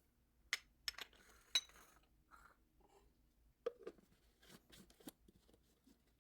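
A few sharp, light clicks and taps of a utensil and containers against a blender jar as seasoning is added, trailing off near the end.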